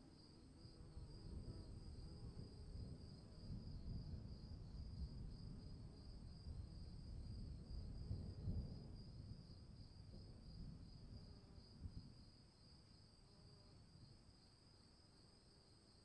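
Distant thunder rolling as a low rumble that builds for several seconds, is loudest around the middle and fades away near the end. Crickets chirp steadily underneath.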